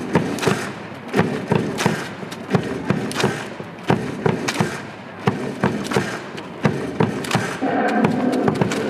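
A stadium cheering section beating out a cheer rhythm: sharp thuds and claps about two to three a second over a low crowd hum.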